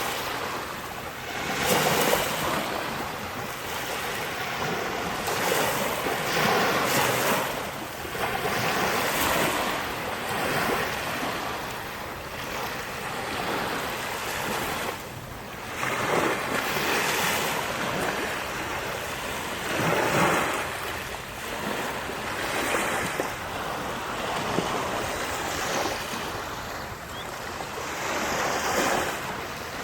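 Sea waves breaking on the shore, a steady rush of surf that swells up every few seconds as each wave comes in.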